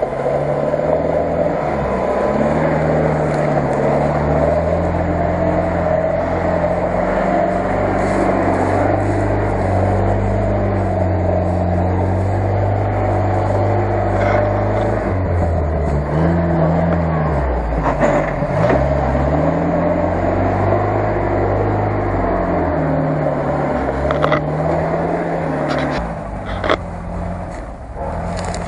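UAZ-469 off-roader's engine revving up and down repeatedly as it drives through deep mud ruts. Near the end the engine sound drops back and a few sharp knocks come through.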